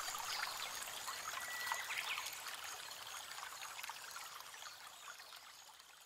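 Water trickling and splashing from a paludarium's small waterfall, a steady trickle that fades out over the last couple of seconds.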